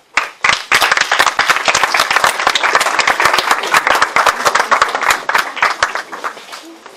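Audience applauding, many hands clapping together; the applause starts right away and thins out, dying away about six seconds in.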